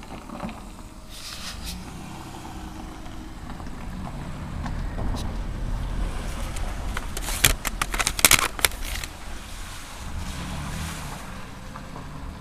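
Plastic CD jewel cases being handled, clacking in a quick cluster of sharp clicks a little past halfway, over a low rumble of handling noise on the camera's microphone.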